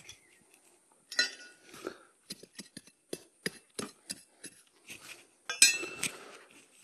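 A metal digging tool striking and scraping into hard, cloddy soil to enlarge a hole: about a dozen irregular knocks and clinks, some with a short metallic ring, the loudest about five and a half seconds in.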